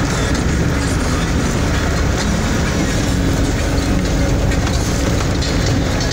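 Vehicle driving over a rough dirt road, heard from inside the cab: a steady low rumble of engine and tyres with the noise of the body shaking.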